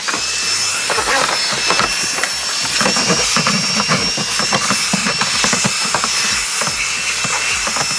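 Shark WandVac cordless handheld vacuum running with a steady high whine and rushing air, with many small clicks and rattles as it sucks crumbs and food scraps off a refrigerator drawer liner.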